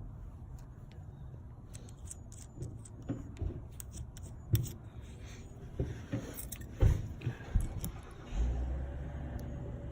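Scattered light clicks and knocks of hands handling small hard objects. About eight seconds in, a steady low rumble starts and carries on.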